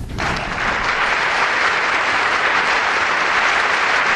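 Audience applauding: dense, even clapping that comes in sharply and builds within the first second, then holds steady.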